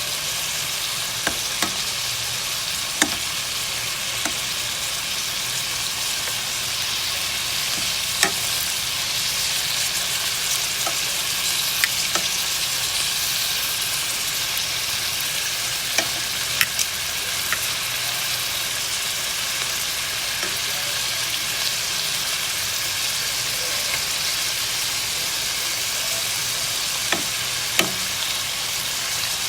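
Chicken pieces sizzling steadily as they fry in a pan, with occasional sharp clicks of a utensil against the pan as the pieces are turned one by one.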